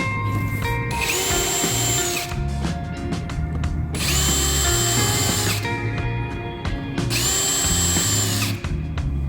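Power drill running in three short bursts of about a second and a half each, its whine rising as it spins up and falling as it stops, over background music.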